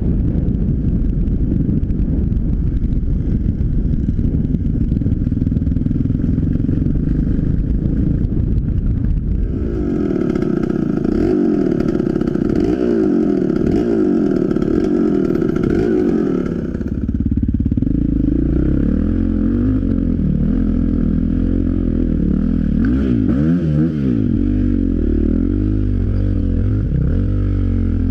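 Dirt bike engines on a forest trail: the rider's Yamaha runs over rough ground with wind and track noise at first, then, about a third of the way in, is blipped up and down at low speed alongside other trail bikes close ahead, the pitch rising and falling over and over.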